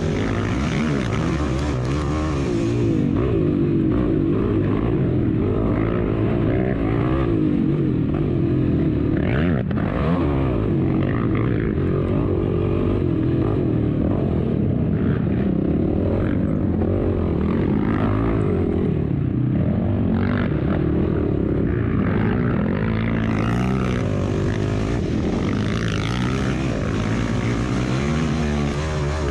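Racing vehicle's engine running hard and continuously, its pitch rising and falling again and again as it revs up, shifts and backs off, heard onboard.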